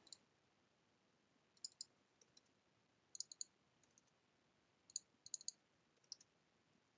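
Faint, scattered clicks of a computer mouse and keyboard, in small clusters of two or three every second or so, as values are typed into fields.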